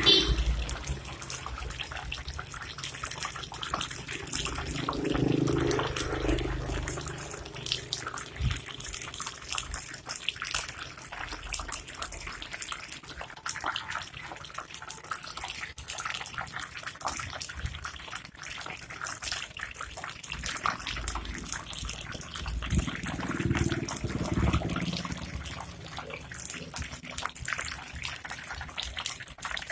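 Hot oil sizzling and crackling steadily around pork-filled taro slices deep-frying on a low flame.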